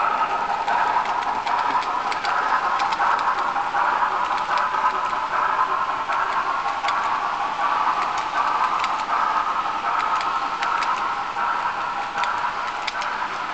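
Model Union Pacific passenger train rolling along its track: a steady whirring rumble of small metal wheels on rail, with scattered light clicks.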